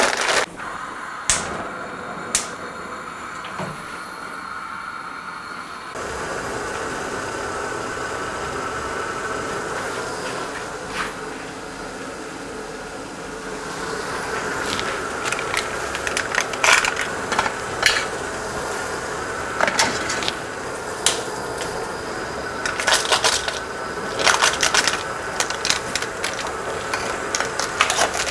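A steady rushing hiss from a pot of water heating to the boil on a gas stove, which gets louder about six seconds in. From about halfway on, many sharp crinkles and clicks come over it as plastic instant-noodle packets are handled and opened.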